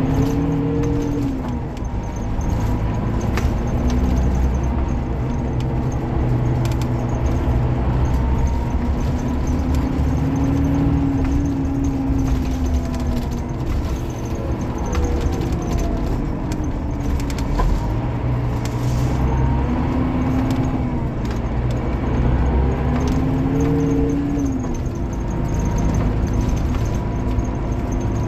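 Scania K360IB bus's DC13 diesel engine running under way, its pitch rising and falling several times as the revs change, with many short rattles and clicks throughout.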